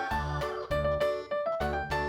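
Background music: an upbeat keyboard tune with a steady beat.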